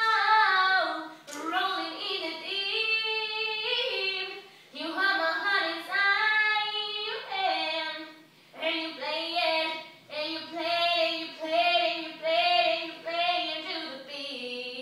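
A female voice singing a song unaccompanied, in a rehearsal, in several sustained high phrases with short pauses between them.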